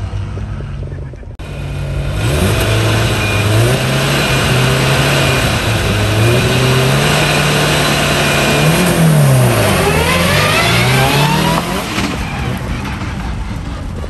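Subaru WRX STI rally car's engine held at high revs on the start line for several seconds, then the car launches and accelerates away hard, the pitch climbing and dropping sharply at each gear change before fading.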